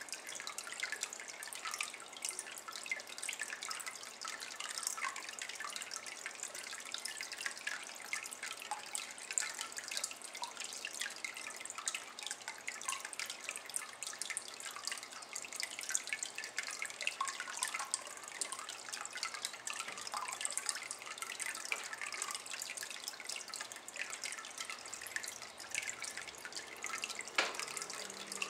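A thin stream of water falling into a water-filled ceramic basin, making a steady, fast patter of drips and small splashes. One sharper click stands out near the end.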